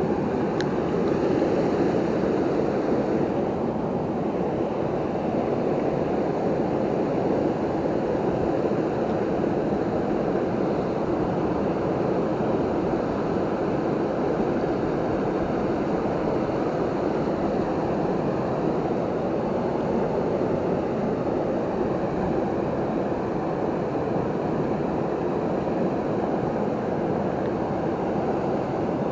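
Rushing water of a waterfall and fast river current, a steady, unchanging rush.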